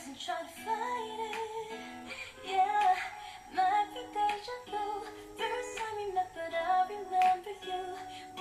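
A pop ballad playing: a woman singing a smooth melody over soft accompaniment.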